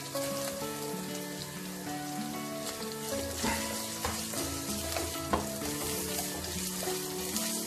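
Chopped capsicum and green chilli sizzling in hot vegetable oil in a metal kadhai, stirred with a wooden spatula. The spatula scrapes and knocks against the pan a few times about halfway through.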